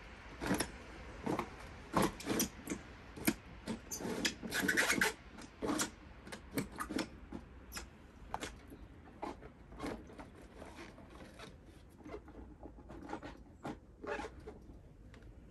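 Hand work on materials: irregular sharp clicks and knocks with rubbing and scraping between them, including a longer scrape about five seconds in. The sounds come thick at first and grow sparser in the second half.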